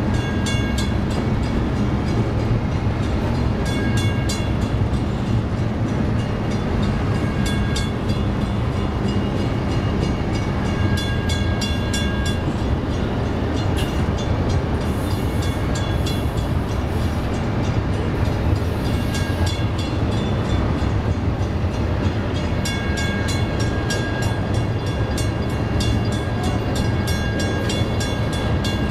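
Double-stack intermodal freight train rolling past, its well cars rumbling and clattering steadily on the rails. A high ringing tone comes and goes several times over it.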